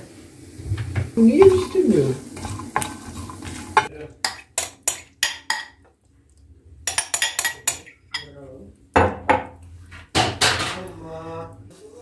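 A fork clinking and scraping against a bowl and a porcelain plate as soft food is scraped out: a run of sharp clicks, a short pause, then more clinks and scrapes.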